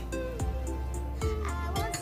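Background music: a gliding melody over a sustained low bass, with regular light percussive ticks.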